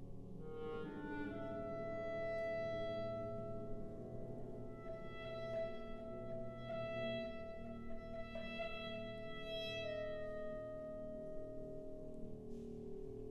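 Solo clarinet with a wind band accompanying: a quick rising run, then one long high note held for most of the passage over soft sustained chords from the band.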